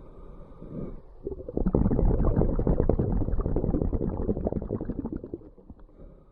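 Scuba diver exhaling through a regulator underwater: a louder burst of bubbling exhaust air starts about one and a half seconds in and fades out about four seconds later, after a quieter stretch.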